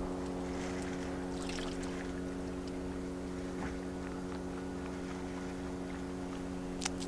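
Outboard boat motor running steadily at a constant pitch. Faint high bird chirps come over it, and there is a single sharp click near the end.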